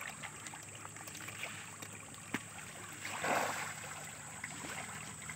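Pangas catfish splashing and churning at the surface of a pond, with scattered small splashes and a bigger splash about three seconds in.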